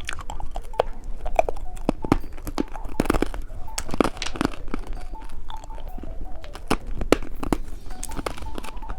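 Close-up eating sounds of a caterpillar-shaped lollipop being bitten and chewed: irregular sharp crunches and clicks, some louder ones clustered about three to four seconds in.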